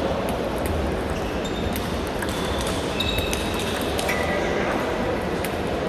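Table tennis balls clicking off bats and tables, irregular overlapping clicks from the near rally and many other tables, over a steady din in a large reverberant sports hall. A few short high squeaks come about two to four seconds in.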